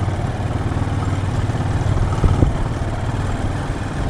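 Motorcycle engine running on the move up a steep, stony road, with a couple of short knocks about two seconds in.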